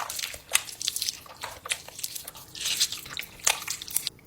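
A person eating close to the microphone: wet chewing with crunching and smacking mouth clicks.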